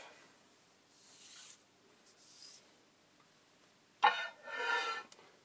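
Lathe cross slide being rubbed on a blued surface plate to show its high spots. There are soft rubbing strokes, then a louder metal-on-metal scrape with a squeaky edge about four seconds in.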